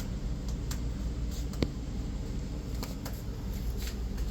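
A steady low hum, with faint scattered rustles and ticks and one sharp click about a second and a half in.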